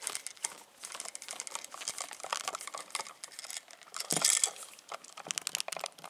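Screwdriver turning a light switch's green ground screw down onto a looped copper ground wire: a run of small, irregular clicks and scrapes of metal and plastic, with one louder bump just after four seconds in.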